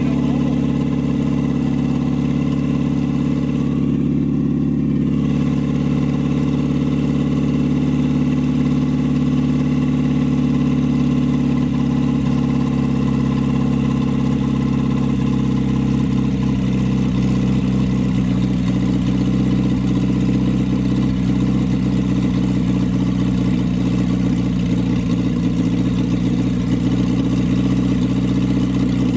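Datsun A-series four-cylinder engine running steadily, its first run after an exhaust valve job, with the valve cover off. Its speed shifts slightly about halfway through. It will not settle to an idle, which the owner puts down to a vacuum leak.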